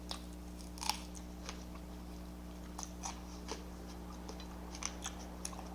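A person chewing food with the mouth close to the microphone: soft, scattered wet clicks and smacks, about a dozen over a few seconds, over a steady low hum.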